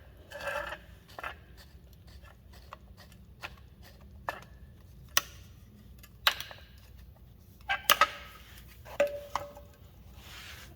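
Scattered sharp metallic clicks and clanks of vice grips and drum-brake hardware being handled and clamped while a small clip is worked into place, with several louder knocks in the second half.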